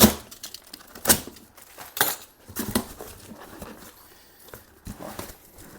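Sharp knocks and clatter of a freight box of steering-rack parts being unpacked by hand, a handful of separate hits about a second apart.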